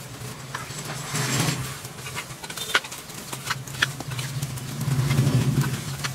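Small petrol engine running at low speed, a little louder about five seconds in, with a scatter of sharp clicks and snaps over it.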